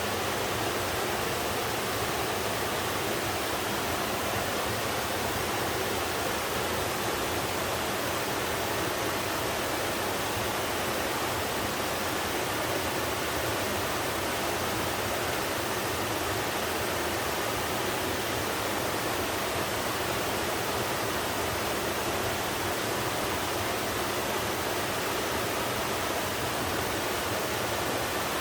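Two-tier slab waterfall: water sliding and pouring down inclined rock in a steady, even rush with no pauses.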